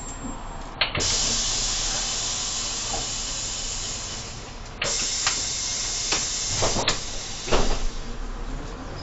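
Irisbus Crossway LE 12M bus's pneumatic system letting out compressed air: a loud hiss starts with a click about a second in and cuts off just before five seconds, then a second hiss runs to about seven seconds. Clicks and a thud follow near the end.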